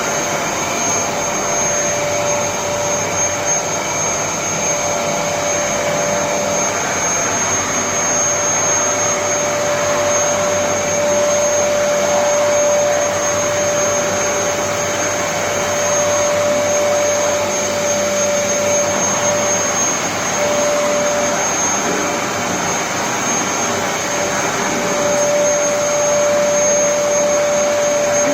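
Vacuum cleaner running steadily: a constant rush of air with a steady motor whine, its lower tone dipping briefly about two-thirds of the way through.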